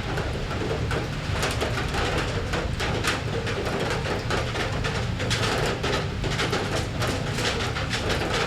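Rain falling on metal: a dense, irregular patter of drops striking the surface over a steady hiss and low rumble.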